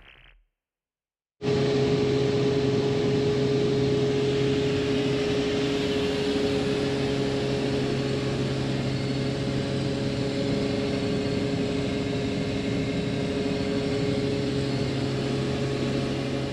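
Combine harvester running steadily: a constant engine and machinery drone with a steady hum, starting abruptly about a second and a half in.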